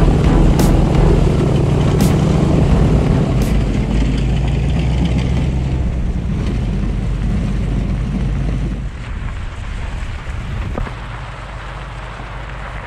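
Airboat's engine and propeller running with a steady low drone that grows fainter over the last few seconds.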